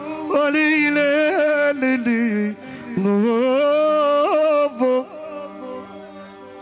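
A man singing into an amplified microphone: two phrases of long, ornamented held notes with a wavering vibrato, over a live band. After about five seconds the voice drops away and the quieter band accompaniment carries on.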